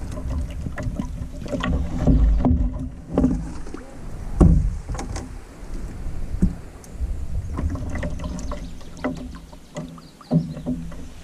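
Canoe landing at a rock ledge: a string of knocks and bumps from the hull and the gear in it as a paddler climbs out and holds the gunwale, over a low rumble.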